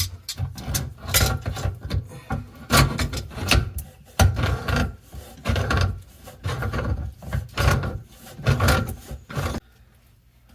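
Irregular rasping, rubbing strokes, about one or two a second, from drain fittings under a bathroom sink being worked loose by hand.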